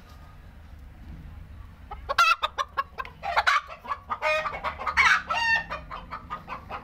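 Hen's laying cackle: quiet at first, then from about two seconds in a run of rapid clucks building into loud, drawn-out squawks, the call a hen gives just after laying an egg.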